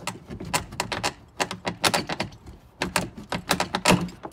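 Ford F-150 side-view mirror assembly being wiggled loose from the door after its mounting bolts are out: rapid runs of sharp plastic clicks and rattles.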